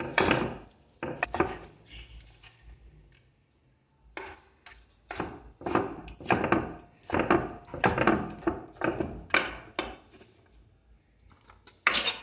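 Kitchen knife chopping boiled pork heart on a wooden cutting board: sharp knocks of the blade against the wood, a few at first, a lull of about two seconds, then a steady run of two or three strokes a second.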